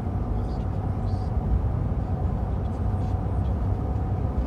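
Steady road and engine noise of a car driving on a highway, heard from inside the cabin as an even low rumble.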